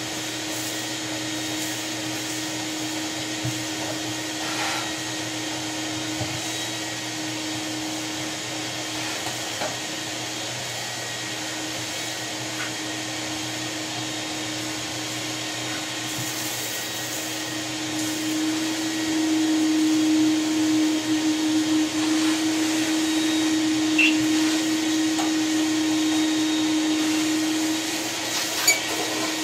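A motor running steadily with a constant pitched hum, louder for about ten seconds in the second half, with a few faint clicks.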